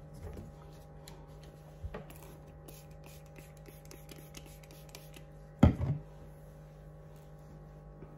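Spray bottle of leave-in conditioner spritzing onto hair in a few short sprays, the loudest a quick pair about six seconds in, over a faint steady hum.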